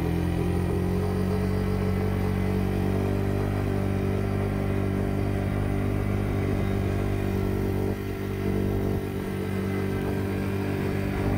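A vehicle engine running steadily at a constant speed.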